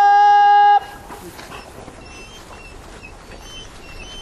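A hunting horn blowing one long, steady note that cuts off just under a second in. It is followed by quieter background with faint, scattered high-pitched calls.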